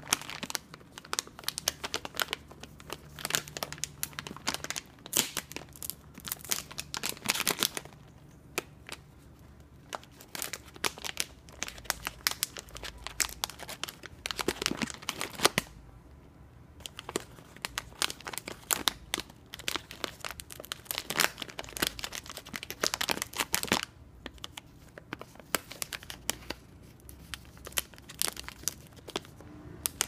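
Plastic bag of in-shell peanuts crinkling and crackling in spells as an African grey parrot bites and tugs at it with her beak, tearing at the plastic.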